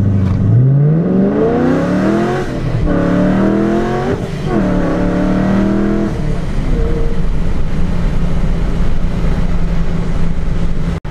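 Procharger-supercharged 5.7-litre Hemi V8 in a Dodge Challenger R/T at full throttle from a standing start, heard inside the cabin. The engine pitch climbs, drops at a gear change about two and a half seconds in, climbs again and drops at a second shift about four seconds in. After about six seconds it eases off to a steady, lower engine note.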